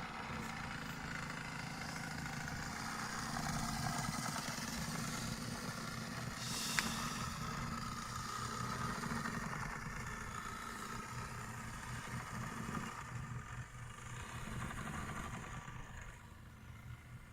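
Model purse-seine fishing boat running, a steady engine-like drone with a low pulsing beat that eases off near the end, and one sharp click about seven seconds in.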